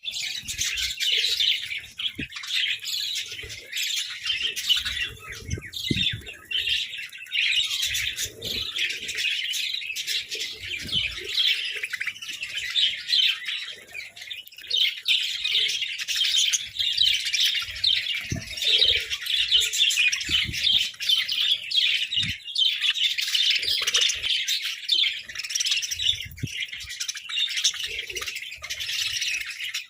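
A flock of budgerigars chirping and chattering continuously, many birds at once, with occasional harsher squawks and faint low knocks.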